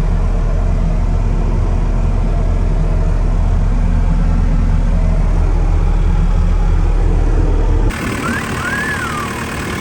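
New Holland C232 tracked skid steer's 3.2 L FPT diesel engine running as a steady low drone; about eight seconds in the sound changes abruptly to a quieter engine idle with a brief rising-and-falling whistle.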